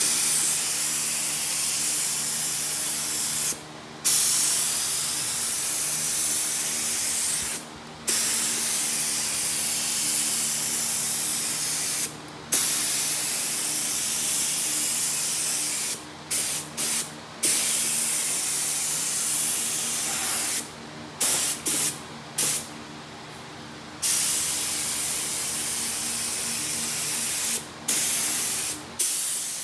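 Compressed-air paint spray gun hissing as it lays on gloss black single-stage paint. The trigger is let go for a moment every few seconds, with a run of quick on-off bursts and a pause of about a second and a half in the second half. A faint steady hum sits underneath.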